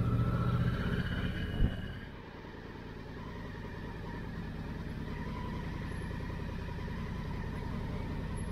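Motorcycle engine running while riding, with a sharp click about one and a half seconds in. After about two seconds it drops to a quieter, steady hum.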